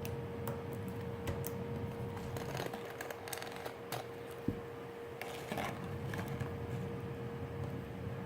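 Light handling noises: scattered small clicks and taps, with one low thump about four and a half seconds in, over a steady background hum.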